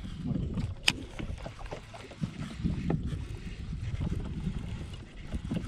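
Wind rumbling on the microphone over a kayak on open water, with small scattered knocks and one sharp click about a second in.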